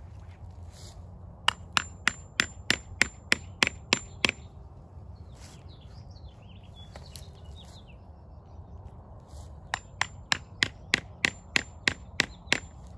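Hammer tapping a tree-injection plug into a hole drilled in the base of a trunk: two runs of about ten quick taps, roughly three a second, each with a slight ring.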